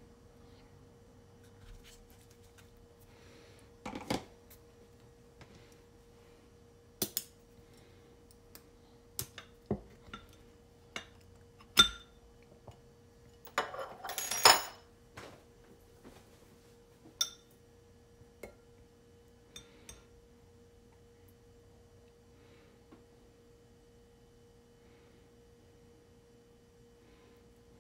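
Kitchen handling sounds: scattered light clicks and knocks of toppings and utensils on a wooden cutting board, with the loudest knocks about twelve and fourteen seconds in as a glass jar is brought onto the counter. A faint steady hum runs underneath.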